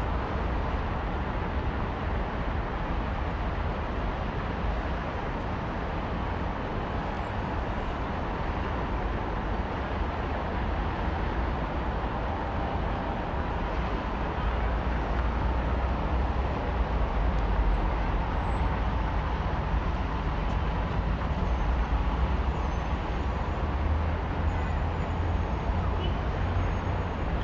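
Steady open-air city ambience with a low rumble, getting a little louder about halfway through.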